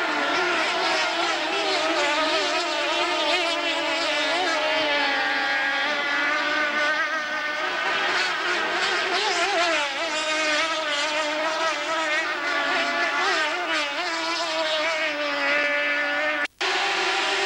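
Several racing powerboat engines running flat out at once, their overlapping pitches wavering up and down as the boats race past. The sound cuts out for a split second near the end.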